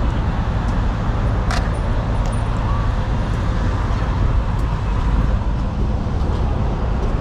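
Steady road-traffic noise, a continuous low rumble of vehicles on the highway, with a brief click about a second and a half in.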